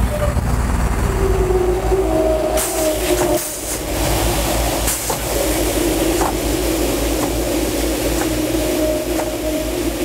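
Sealcoating truck with a truck-mounted spray tank moving slowly forward, its engine and pump giving a steady rumble and hum with a few clicks. About two and a half seconds in a hiss comes in as the air-actuated valves release the material, water here, through the drag box onto the pavement.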